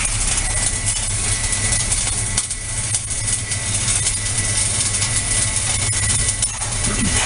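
Arc welding: a steady hiss with fine crackle over a constant low electrical hum from the welding equipment, with a faint steady high tone.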